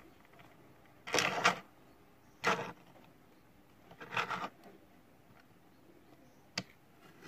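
Die-cast Hot Wheels toy car pushed by a finger across a mat: three short rolling, scraping rattles about a second or so apart, then a single sharp click near the end.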